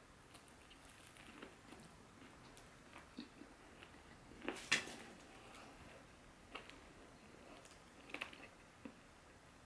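Quiet chewing and biting of crispy fried chicken, with scattered small crunches and clicks and one sharper crackle about halfway through.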